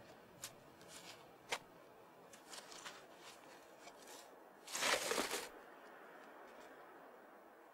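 Hands scraping and brushing loose, damp soil away from a buried object: small crumbling ticks of earth, then a louder scrape and rustle lasting about a second, five seconds in.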